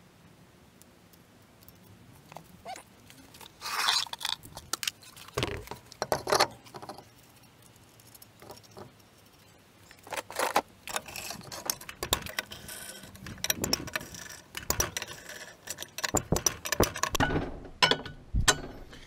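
Irregular metallic clinks and knocks of wheel nuts and a wrench being handled while a car's front wheel is refitted. They come sparsely at first and grow busier about halfway through.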